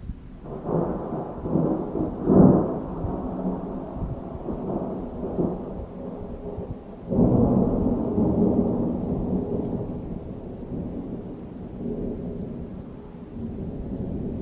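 Thunder: a rolling rumble that builds from about half a second in and peaks a couple of seconds later, then a second peal that breaks in suddenly about seven seconds in and rumbles away slowly.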